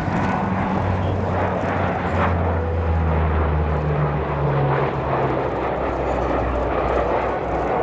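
The four Allison T56 turboprop engines and propellers of a C-130H Hercules make a loud, steady drone as it flies by. The drone drops in pitch around the middle as the aircraft passes.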